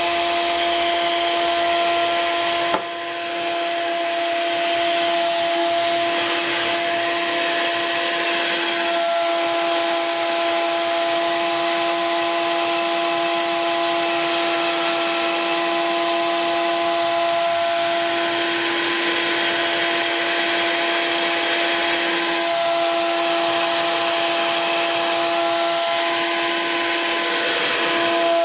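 V120D02 micro RC helicopter's electric motor and drive-train gears running at a steady speed on the bench: a constant high whine with gear noise and hiss. The level dips briefly about three seconds in.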